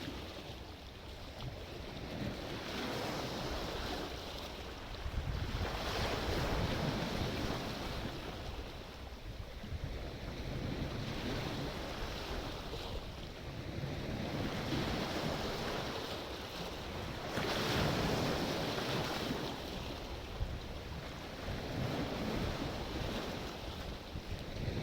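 Sea waves breaking and washing back, the surf swelling and fading every few seconds.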